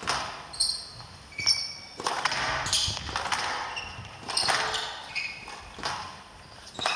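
Squash doubles rally: the ball struck by rackets and hitting the court walls and floor in sharp knocks every half second to a second, with short high shoe squeaks on the court floor between them.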